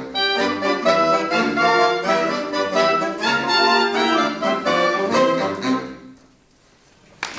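Student wind band with a large saxophone section playing the closing bars of a piece, the last notes dying away about six seconds in. After a brief hush, applause starts right at the end.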